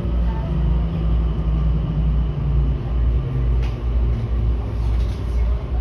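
Keikyu commuter train running, heard from the front of the cab: a steady low rumble with a faint motor tone that slowly drops in pitch, and a single click about halfway through.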